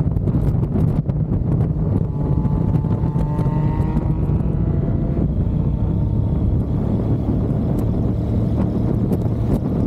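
Loud wind noise buffeting the microphone on a moving motorcycle, over a low engine rumble. Between about two and five seconds in, a faint engine tone rises slowly.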